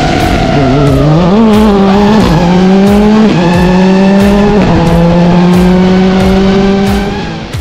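Rally car engine under hard acceleration. The revs dip, then climb, and the pitch drops sharply at three quick upshifts before rising again through the next gear.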